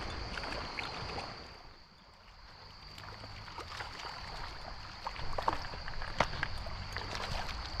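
Creek water sloshing and small splashes as a hooked wild brown trout is played toward the angler, with scattered splashes from about three seconds in. A steady high chirring of crickets runs underneath.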